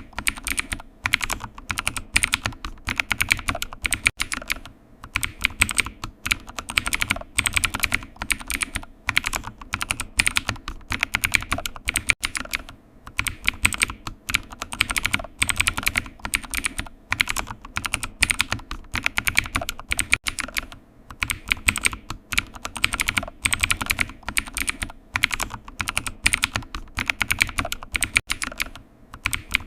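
Typing on a computer keyboard: a continuous run of rapid key clicks, with short pauses now and then.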